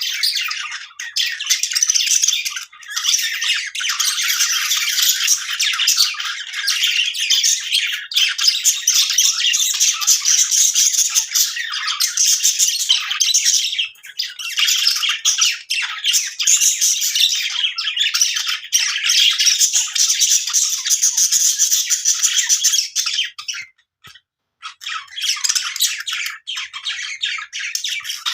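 Budgies chattering in a happy mood: a dense, almost unbroken stream of high chirps, warbles and squawks. There is a brief lull about fourteen seconds in and a short silence near twenty-four seconds.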